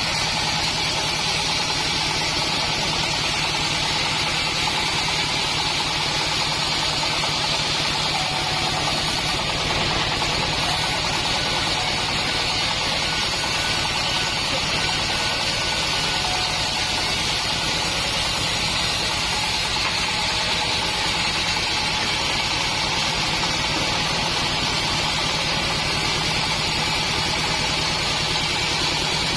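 Assembled bandsaw mill running steadily: a constant engine drone under an even hiss, with no change in pitch or level.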